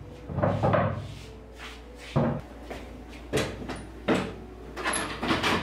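Wooden café chairs being straightened and pushed in at wooden tables: a run of five or six short wooden knocks and bumps, spread unevenly over a few seconds.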